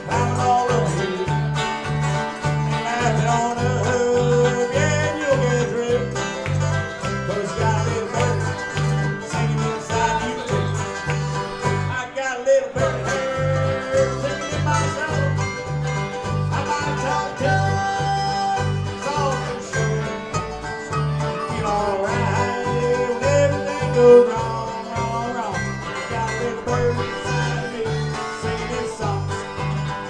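Live bluegrass band playing an instrumental break: banjo and guitars over a steady bass beat, with a harmonica taking bending lead lines. The band stops for a moment about twelve seconds in, then picks back up.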